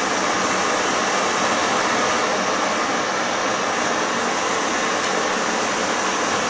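Propane torch flame burning with a steady, even hiss as it heats a fluxed copper pipe joint for sweating, before the joint is hot enough for the solder to flow.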